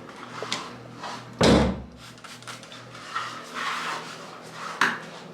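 Objects being handled: scattered small clicks and rustles, with one heavy thump about a second and a half in and a sharper click near the end.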